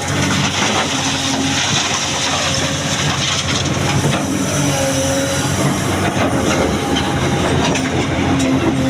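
Heavy excavator's diesel engine running steadily under load, with repeated clattering and clanking as stone boulders are loaded into a dump truck.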